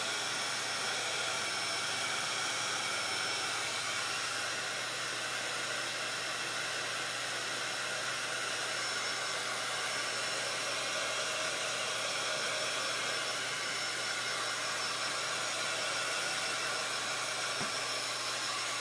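Handheld craft heat tool running steadily, its fan blowing hot air to dry wet chalk paste: an even rushing whir with a faint steady whine.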